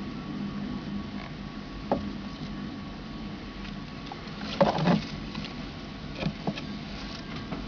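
Scattered light clicks and taps from a leopard gecko feeding, with a louder cluster of knocks about four and a half seconds in, over a faint steady hum.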